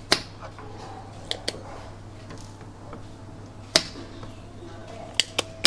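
About seven short, sharp clicks and knocks of an electric soldering iron being handled and set down at a workbench, the loudest near the start and just before four seconds in, over a steady low hum.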